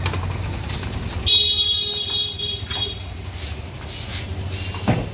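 A vehicle horn sounds once for about a second and a half, over the low running of an engine that fades away; a short knock near the end.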